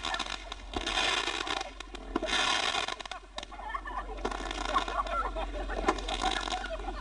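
Ground fireworks hissing in three short bursts in the first three seconds, with scattered crackles and pops, and faint high calls in between.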